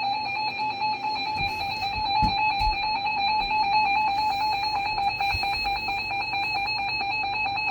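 Emergency Alert System attention signal: a loud, steady electronic alert tone sounding between weather-warning broadcasts.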